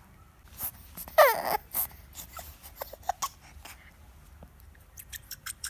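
A baby's gums and teeth working a rubber teether, which squeaks and scrapes in short irregular bursts. There is one louder falling squeak about a second in, and a fast run of short squeaks near the end.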